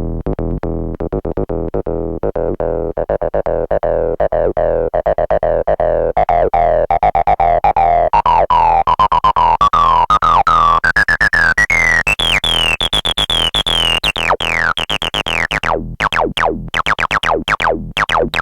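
Roland TB-03 bass synthesizer playing a fast repeating acid bassline pattern while its filter is tweaked by hand. The resonant squelch rises steadily in pitch over about ten seconds, falls back near the end, and then the notes turn brighter and sharper.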